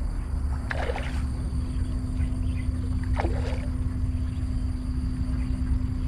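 Wind buffeting the microphone in a steady low rumble, under a constant low hum. Three short, brief sounds stand out, about a second in, about three seconds in and at the very end.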